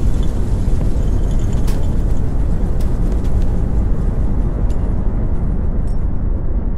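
Low, steady rumbling from a building shaking in an earthquake, with a few faint scattered rattles and clicks.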